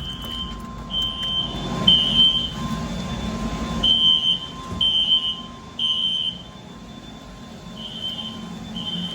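Fire alarm sounder beeping a high-pitched tone in the temporal-3 evacuation pattern: three half-second beeps, a pause of about a second and a half, then three more. A low rumble runs underneath about two to four seconds in.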